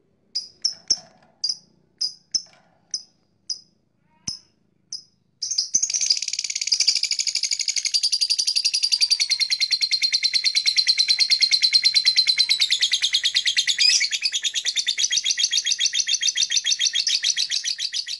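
Blue masked lovebird calling: a string of short, separate high chirps for about five seconds, then a long, fast, unbroken chattering trill of about thirteen seconds, the lovebird's long 'ngekek' song.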